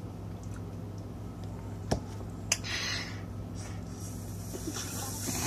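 A person drinking from a cup. About two seconds in there are two small clicks half a second apart as the cup is handled, and a breathy hiss comes near the end. A steady low hum runs underneath.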